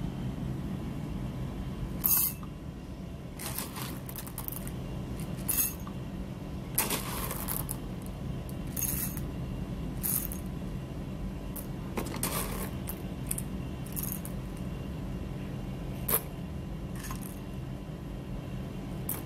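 Whole roasted coffee beans poured a few at a time into a glass tumbler: about a dozen short, irregular clattering rattles of beans hitting glass, over a steady low hum.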